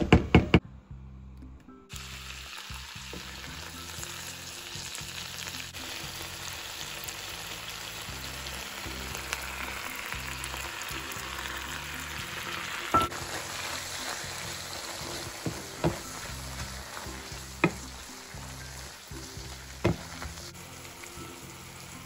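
Butter, onions and strips of roasted red pepper sizzling as they fry in a nonstick pan, starting about two seconds in. There is a cluster of loud knocks at the very start, and later a few sharp clicks of a wooden spoon against the pan.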